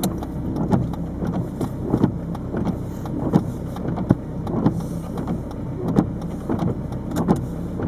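Peugeot 306 turbo diesel heard from inside the cabin while driving, the engine running steadily. Frequent short rattling clicks come at irregular intervals, the kind the owner puts down to the camera rattling against the dashboard.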